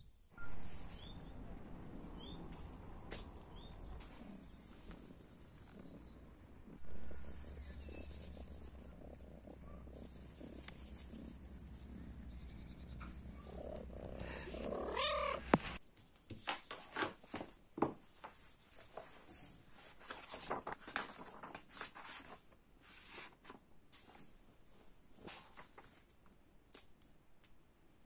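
A few faint bird chirps, then a cat purring steadily close to the microphone, ending in one loud meow. After that come scattered light taps and clicks of a pen and paper being handled at a desk.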